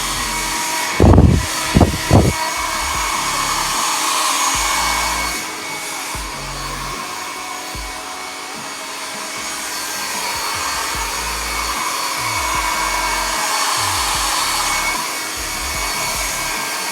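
Philips 1000 W hair dryer running steadily on its medium setting: a rush of blown air with a thin constant whine. A few low thumps come about a second in, and the sound dips a little in the middle and swells again.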